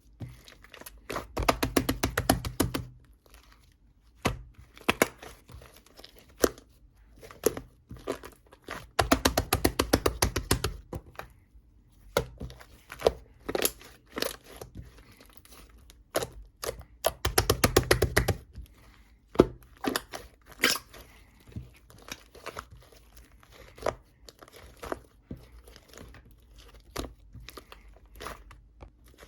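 Close-up crunching and crinkling as a crunchy strawberry ice cream is bitten and handled. Three dense runs of rapid crackling, each about two seconds long, come near the start, about nine seconds in and about seventeen seconds in, with scattered clicks between them.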